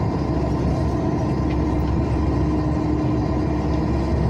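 Steady drone of a diesel truck's engine and tyres on wet asphalt, heard from inside the cab while cruising, with a constant hum running through it.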